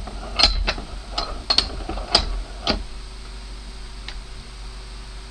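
Sharp, irregular metallic clicks and taps as a hand tool works the brass pipe fittings of a forge burner held in a bench vise. About seven come in the first three seconds, then one faint one about four seconds in.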